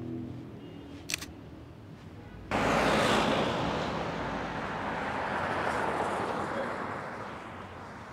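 A short sharp click about a second in. Then street traffic noise starts abruptly about two and a half seconds in, as a vehicle drives past, and slowly fades.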